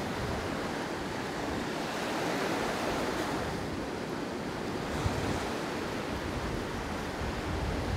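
Sea waves washing, with wind blowing on the microphone: a steady rushing noise.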